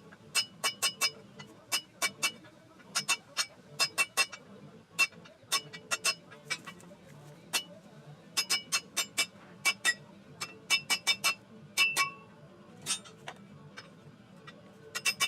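Hammer striking 1/2-inch mild steel round bar on a railroad-track anvil, each blow ringing metallically, in irregular quick runs of two to four strikes. The bar is being bent cold, without heating.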